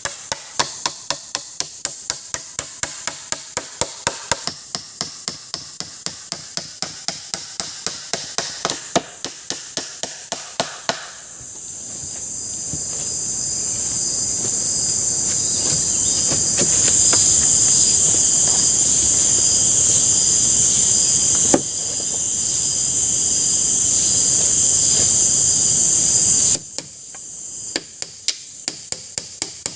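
Rapid, regular knocks of a tool striking wood, about three a second. About eleven seconds in they give way to a high-pitched insect chorus that swells and holds, then cuts off suddenly, and the knocking resumes near the end.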